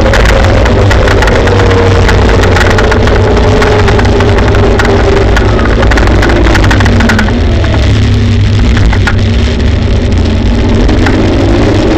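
Kaabo Wolf Warrior GT Pro electric scooter on the move: a heavy rumble of road and wind noise with rapid rattling clicks, over a hub-motor whine. The whine drops in pitch as the scooter slows about seven seconds in, and rises again as it speeds up near the end.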